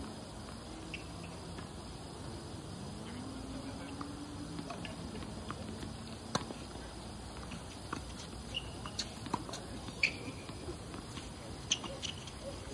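Tennis rally on an outdoor hard court: rackets striking the ball, a string of sharp pops from about six seconds in, one every second or so, mixed with short high squeaks of sneakers on the court surface.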